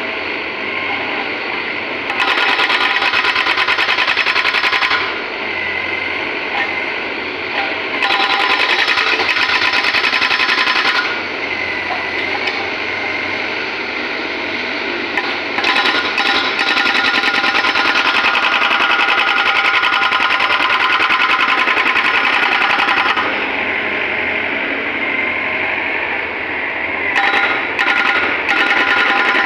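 Hydraulic breaker on a wheeled excavator hammering into an asphalt road, breaking up the surface in runs of rapid blows. There are three long runs, the longest about seven seconds, and a couple of short ones near the end, with the excavator's engine running in between.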